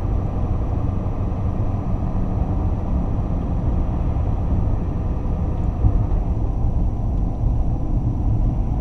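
Steady low rumble of a truck driving, engine and tyre noise heard from inside the cab.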